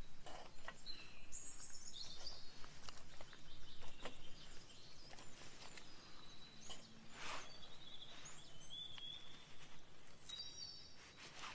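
Small songbirds singing in woodland, short high chirps and trills coming and going. Between them, light clicks and a brief scrape from wood and a knife being handled.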